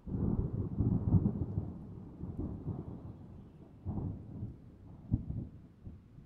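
Thunder rumbling, starting suddenly at full strength and slowly fading, with sharper cracks about four seconds and about five seconds in.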